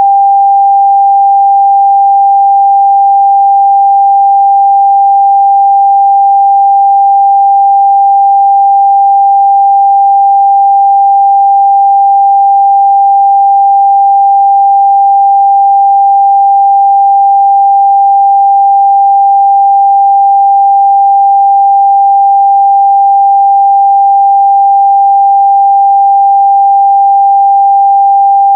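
A steady, loud 794 Hz pure sine-wave test tone, a single unwavering pitch in the midrange.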